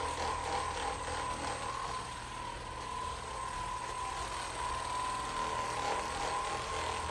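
Handheld electric massager's motor running with a steady whine, its pitch wavering slightly as it is pressed into the leg muscles to relax them.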